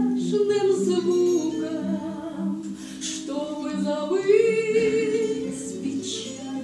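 A woman singing the closing line of a Russian romance in long, held notes.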